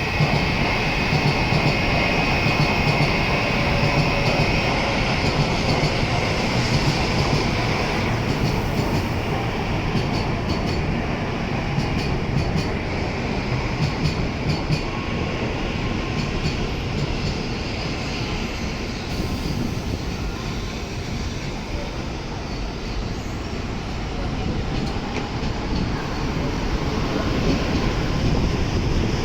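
N700S Shinkansen train pulling out of the station platform, its running noise steady throughout, with a high steady tone during the first few seconds.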